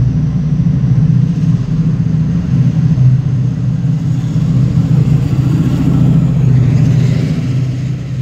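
Chiltern Railways Class 68 diesel locomotive 68009, a Caterpillar V16, pushing its train of coaches through the station: a loud, steady low engine drone with the rumble of the passing coaches. The hiss and rush grow as the locomotive itself goes by near the end, then the sound begins to fall away.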